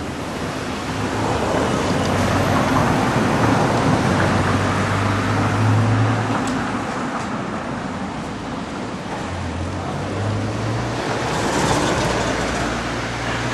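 Road traffic passing along a town street: a steady rush with a low engine hum that swells over the first few seconds, eases off, then swells again near the end as another vehicle goes by.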